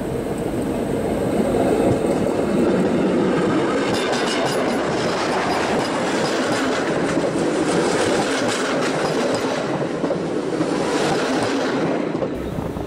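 Steam-hauled passenger train rolling directly over the track from between the rails: a loud, dense rumble of wheels on rail with rapid clicks of wheels over the joints, dropping away near the end as the last carriage clears.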